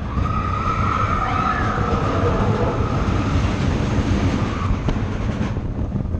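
A steady low rumble with a high, wavering squeal over it, which fades out about five seconds in.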